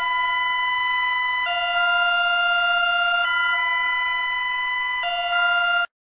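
Belgian emergency alert tone: two steady pitches take turns, each held just under two seconds, in a hi-lo pattern like a European ambulance siren. It cuts off abruptly near the end.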